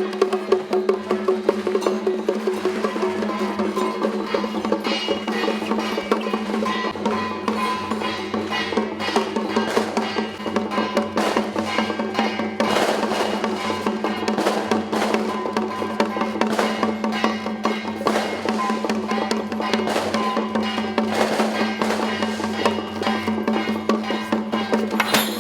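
Temple-procession percussion music: fast, dense drum and wood-block-like strikes over a steady held low note, with a higher melody line coming in a few seconds in.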